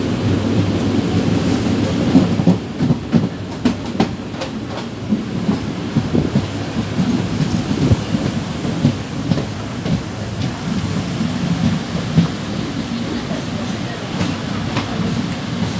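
Passenger train running at speed, heard from inside a coach at an open window: a steady rumble of wheels on the rails with irregular clicks and knocks from rail joints, thickest a couple of seconds in.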